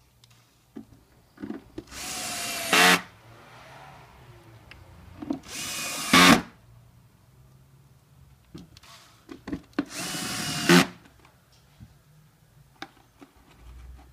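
Cordless drill-driver driving screws into a plastic motor cover in three short bursts of about a second each, each whine growing louder as the screw seats, with small clicks of handling in between.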